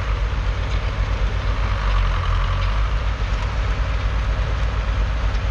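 John Deere 6210 tractor's 4.5-litre four-cylinder diesel engine running steadily with a deep, even drone.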